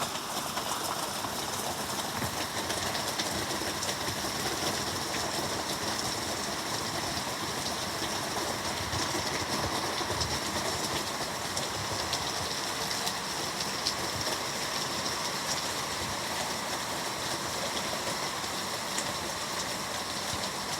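Heavy downpour: rain falling steadily as an even hiss, with a fine patter of drops.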